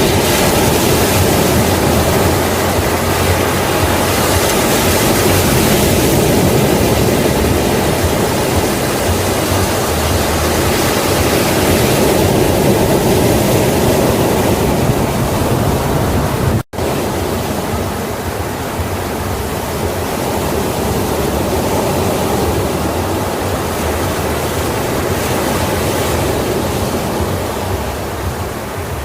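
Sea waves breaking on a shore: a steady, loud rushing surf that swells and eases slowly. It cuts out for an instant about two-thirds of the way through, then carries on a little quieter.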